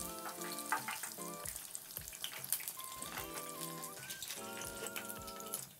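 Hot oil crackling and sizzling as battered fukinotou (butterbur bud) tempura deep-fries in a small pan, under background music with a simple stepping melody.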